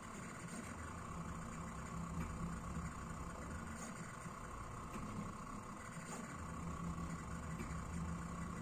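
Desktop diode laser engraver running while it dot-engraves a cracker: a steady mechanical hum from the machine, with a low tone that swells and eases every few seconds as the stepper motors move the laser head.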